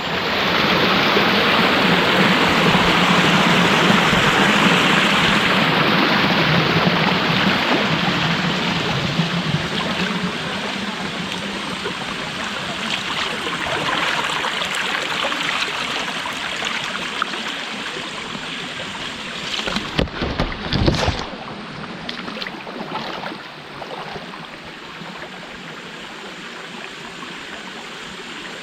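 Forest stream rushing steadily. It begins abruptly and slowly eases off, with a couple of dull thumps about two-thirds of the way through.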